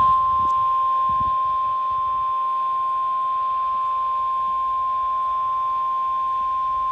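NOAA Weather Radio 1050 Hz warning alarm tone: one long, steady high beep over faint radio static. It is the alert that a warning broadcast follows, here a tornado warning.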